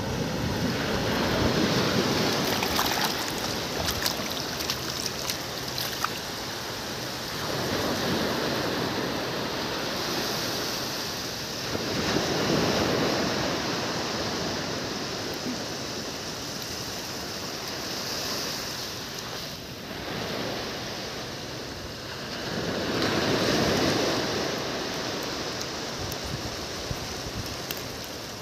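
Sea surf washing up a sandy beach, a steady rush that swells and fades several times as waves run in and draw back.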